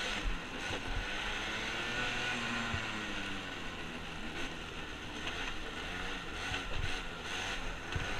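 Arctic Cat ATV engine running under throttle, its pitch rising and falling as the revs change, with a few low thumps.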